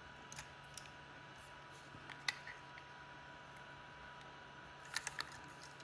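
Faint, scattered clicks and taps of small screws and tools being handled against a drone's plastic body, the sharpest about two seconds in and a quick run of three near the end, over a faint steady hum.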